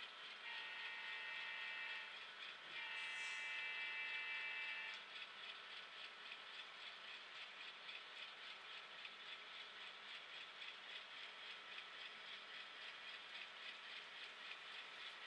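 N scale double-stack well cars rolling past on model track, their wheels clicking quickly and evenly over the rail joints. Near the start a multi-tone train horn sounds twice, a short blast and then a longer one.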